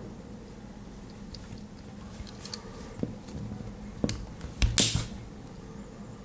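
Handling of a Victorinox Compact Swiss Army knife: light rubbing and a few sharp small clicks about three to five seconds in, the loudest a pair just before five seconds.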